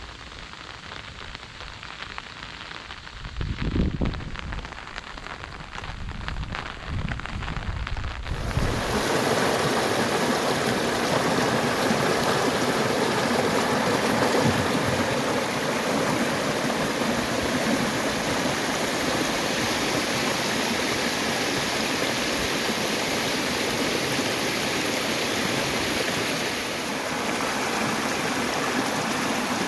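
Rain falling, with low rumbling gusts for a few seconds. About eight seconds in, it changes abruptly to a louder, steady rush of flowing water: a storm-swollen canal running fast.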